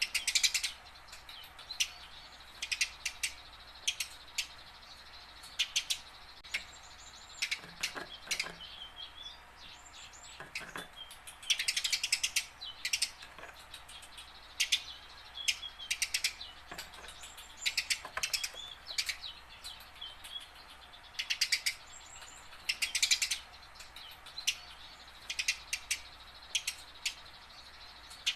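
Eurasian tree sparrow chirping, in short bursts of quick chirps a second or two apart, with a couple of longer chattering runs.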